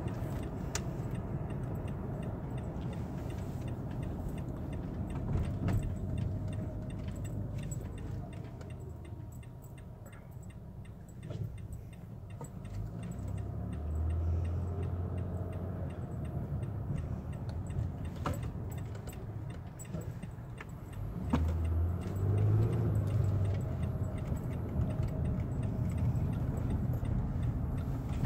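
Road noise heard from inside a moving car: a steady low rumble of engine and tyres, with small clicks and rattles in the cabin. It quiets through the middle as the car slows for a traffic light, then the engine note rises again as it pulls away.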